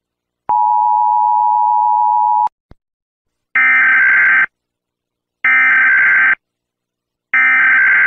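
Emergency Alert System signals: a steady alert tone held for about two seconds, a short click, then three one-second bursts of the buzzing SAME digital header code that opens an EAS alert.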